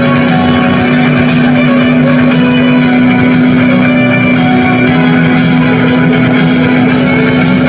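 Loud rock music with electric guitar and drums, playing steadily.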